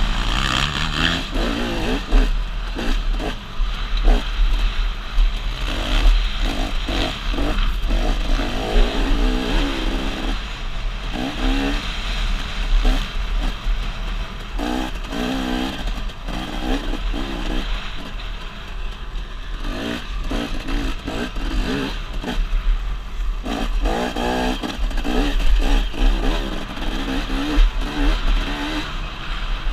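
Dirt bike engine heard from the rider's helmet camera, revving up and dropping back over and over as the bike accelerates and shifts along the track. A steady low buffeting of wind on the microphone sits underneath, with knocks and rattles as the bike goes over bumps.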